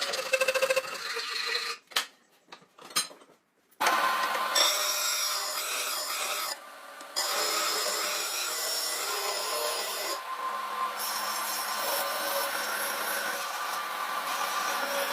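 Steel dao sword blade being ground or filed: a steady metallic rasping with a faint whine, broken off for about two seconds near the start.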